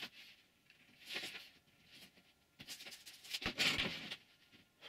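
Short scratching and rubbing strokes of a pencil marking out a plywood sheet and a long wooden straightedge being slid across it, with a soft knock about three and a half seconds in.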